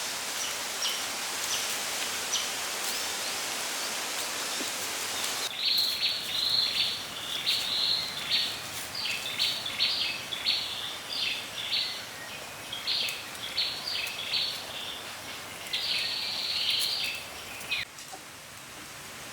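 A run of short, high-pitched animal calls, repeated many times in quick groups, over a steady hiss. They start abruptly about five seconds in and stop abruptly shortly before the end.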